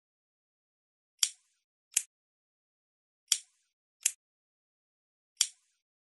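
A lighter clicking: sharp clicks in pairs about three-quarters of a second apart, the first of each pair with a short trailing rasp, the pair repeating about every two seconds.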